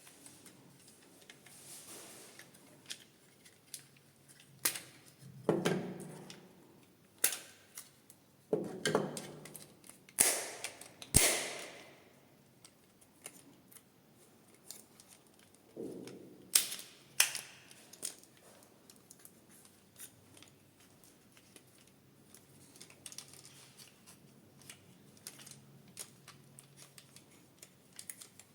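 Hands handling packaging and a plastic toy: scattered sharp clicks and taps with several louder rustling, scraping bursts, the loudest about ten to twelve seconds in.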